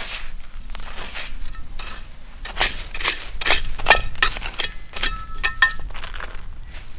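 Small hand trowel digging into fine gravel: a quick, irregular run of scraping crunches as stones are scooped and tossed, with loose gravel rattling and clinking. A few strokes about two-thirds through carry a short ringing tone.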